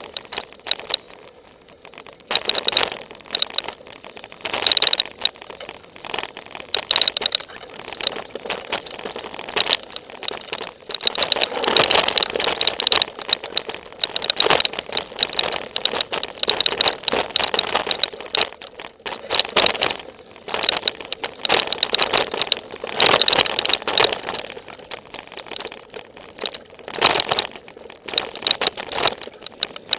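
Downhill mountain bike running fast over a rough dirt and rock trail, rattling and clattering in irregular bursts as it hits bumps, with sharp knocks throughout.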